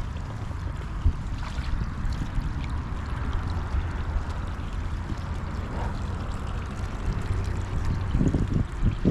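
Steady rushing of shallow creek water, with a low rumble of wind on the microphone.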